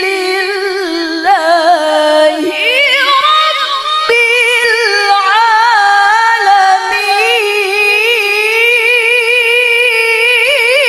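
A woman reciting the Quran in the melodic tilawah style through a microphone and PA system. She holds long notes with ornamented turns, and a new phrase begins about four seconds in.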